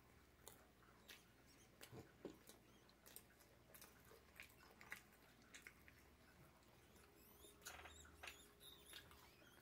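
Faint close-up chewing of a bread sandwich: a scatter of small wet mouth clicks and smacks, a little denser near the end.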